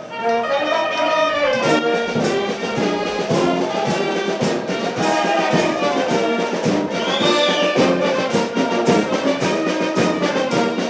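Brass band playing, trumpets and trombones carrying the tune over a steady percussion beat.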